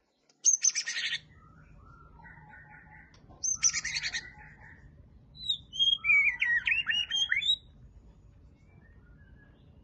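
White-rumped shama (murai batu) singing in full voice: loud, varied whistled phrases in three bouts, two short bursts near the start and about three and a half seconds in, then a longer run of rising and falling whistles from about five to seven and a half seconds in.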